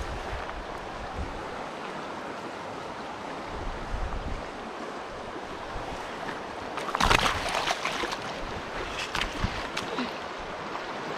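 Shallow river water running steadily, with a burst of splashing about seven seconds in and a few smaller splashes after it.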